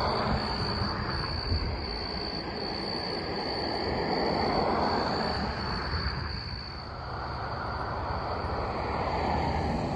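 Rumbling of a distant approaching freight train that swells about halfway through and again near the end, under a steady high insect trill.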